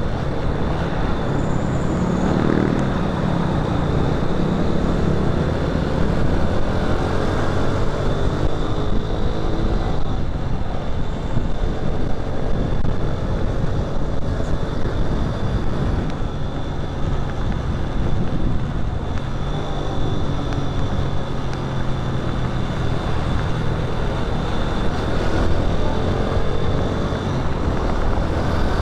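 Motorcycle engine running on the road amid traffic noise, its pitch rising and falling, with a thin steady high whine.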